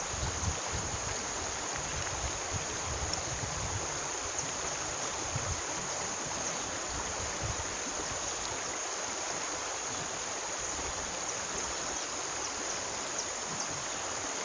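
Shallow river rippling over stones, a steady rush of running water, with a constant high-pitched insect buzz over it.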